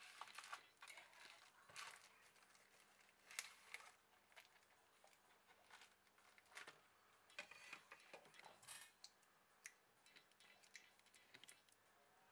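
Faint, irregular rustling and small clicks of a plastic bubble-wrap bag being handled as the replacement phone screen is unpacked.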